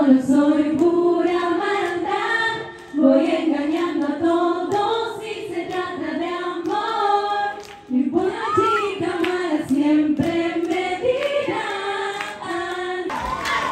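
A group of voices singing a song together without instruments, in phrases with short breaks between them. Near the end the singing gives way to crowd noise.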